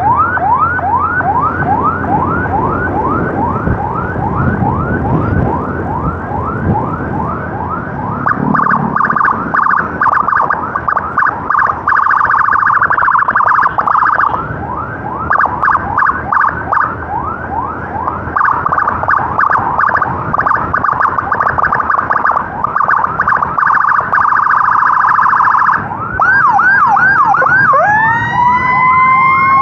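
Electronic emergency siren cycling through its tones: a fast yelp of about four rising sweeps a second, then from about eight seconds in stretches of a rapid warble alternating with the yelp, and near the end a slow rising wail.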